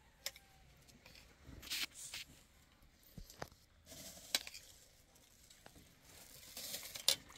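Scattered rustling and light clicks of things being handled, with a short stretch of denser rustling near the end.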